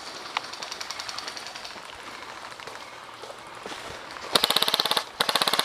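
Airsoft electric rifle firing on full auto close by: about four seconds in, two loud bursts of rapid, evenly spaced shots in quick succession. Before them, fainter rapid ticking of airsoft fire further off.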